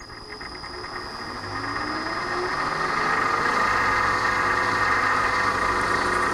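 A vertical milling machine's spindle spins up with a rising whine over the first couple of seconds, then runs steadily. A drill bit cuts into a metal tube, adding a steady grinding hiss.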